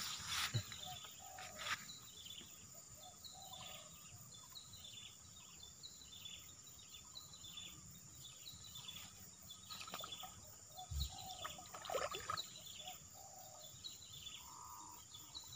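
Birds calling: short falling chirps repeated about twice a second, with lower calls between them, and a few brief rustles and knocks from handling near the water.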